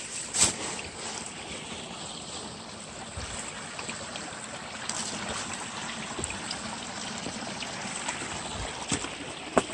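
Mountain stream running with a steady rush of water, with a sharp click just after the start and another near the end.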